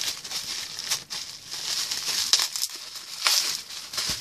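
Parcel packaging crinkling and rustling as it is handled and unwrapped, with a few sharp crackles.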